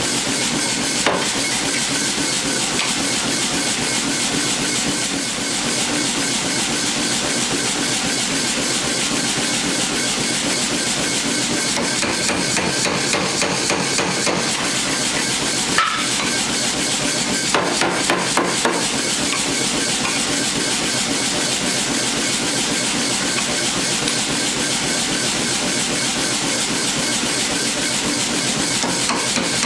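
Hammer blows forging mild steel, struck in a rapid, steady rhythm without a break, with a few louder strikes in the middle stretch.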